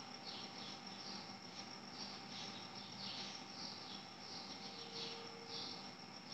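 Faint cricket chirping: short, high chirps repeating irregularly, a few a second.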